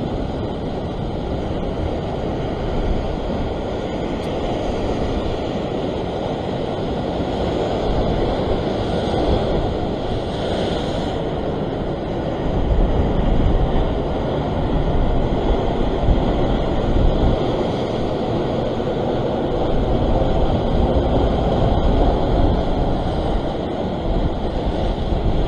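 Sea surf washing and breaking against coastal rocks, mixed with wind rumbling on the microphone: a steady low wash that swells louder now and then.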